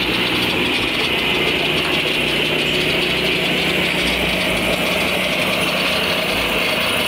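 Lucas Mill portable sawmill running steadily: its engine and spinning saw blade make a constant loud drone with a high whine over a low hum.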